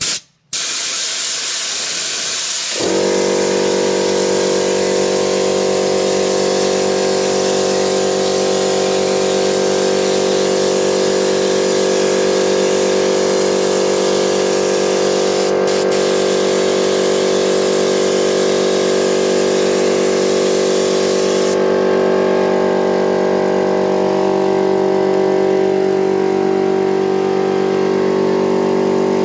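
Pneumatic paint gun hissing loudly as it sprays water on compressed air. About three seconds in, the air compressor's motor kicks in and runs steadily. The hiss drops off about two-thirds of the way through while the compressor keeps running.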